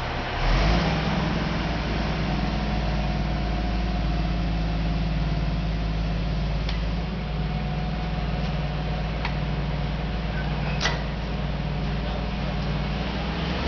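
A crane's engine running steadily, picking up about half a second in, with a few sharp metallic clicks from the rigging later on.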